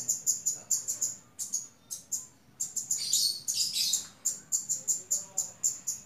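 Caged kemade songbird calling a quick run of short, sharp, high chirps, about four to five a second, broken by a couple of brief pauses.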